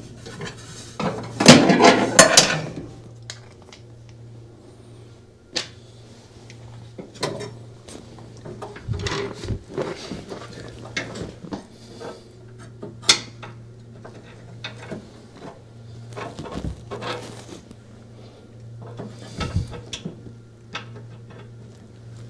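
Metal parts of a Speed Queen washer's brake assembly being handled and fitted by hand under the machine: scattered clinks, scrapes and knocks, with a louder clatter about a second and a half in. A faint steady low hum runs underneath.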